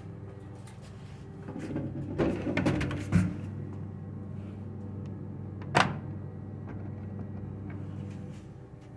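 Restroom stall door being swung shut: a rattling clatter building over about a second and a half, ending in a bang about three seconds in, then one sharp click near six seconds, under a steady low hum.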